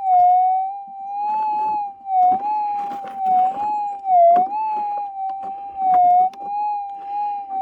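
Minelab GPZ 7000 gold detector's steady threshold tone, wavering gently up and down in pitch as the coil is swept in a dug hole, with scraping and a few knocks of the coil against the soil. The faint response is not getting any stronger, which the detectorist suspects is ground noise from wet clay and hot rocks.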